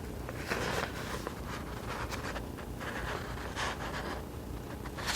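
Faint handling noise: soft rustles and scrapes, a few at a time, over a steady low hum.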